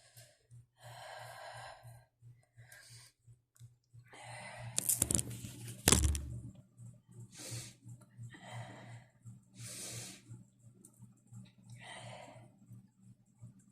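A woman's breathy, catching breaths while holding back sneezes, a series of short bursts with a louder stifled burst and a sharp click about five to six seconds in. A low steady hum runs underneath.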